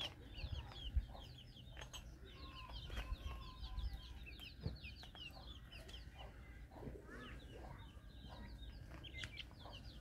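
Many small birds chirping together in a dense, continuous chatter of short, quick high chirps, with a few lower calls mixed in and a low rumble underneath.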